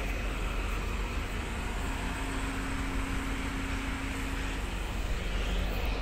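Steady low rumble and hum of a tanker's deck machinery running, with a faint steady tone that comes in about two seconds in and fades out near five seconds.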